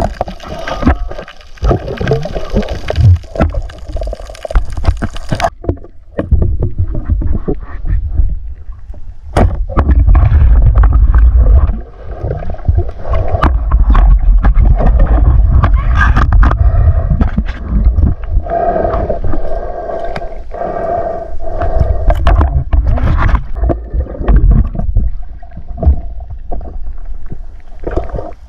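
Muffled underwater sound picked up by a submerged camera: deep rumbling water movement with scattered sharp clicks and knocks. About five seconds in, the higher hiss drops out and the sound turns dull and heavy.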